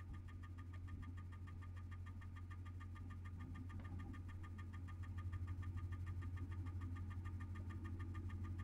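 A steady low hum under a fast, evenly pulsing flutter, a drone in an experimental improvised piece that grows slightly louder about halfway through.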